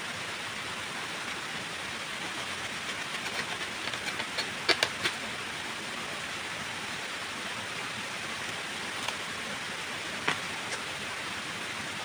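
Steady rushing of running water, with a few sharp knocks of a machete chopping into the base of a bamboo shoot, a cluster of them about four to five seconds in and another near ten seconds.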